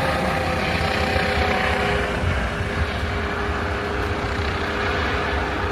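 Helicopter engine and rotor running steadily: a held whine of several tones over a low rumble.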